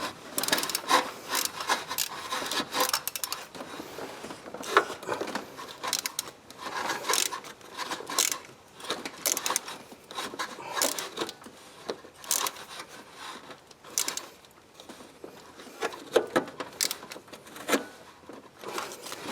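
Hand tools working on spark plugs in an engine bay: irregular metal clicks, clinks and scraping of a socket, extension and ratchet against the plug wells and engine parts.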